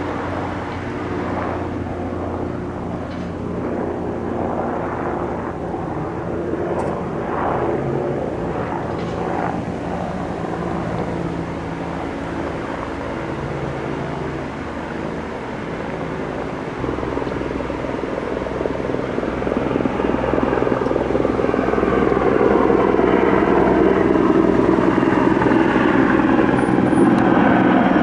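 Sikorsky S-64 Skycrane firefighting helicopter flying, a steady rotor and twin-turbine hum that grows louder over the second half as it comes closer.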